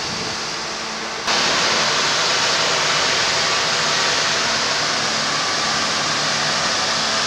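Steady machinery noise from a Hitachi crawler excavator working on a dredging barge close alongside. It jumps louder and stays there from about a second in.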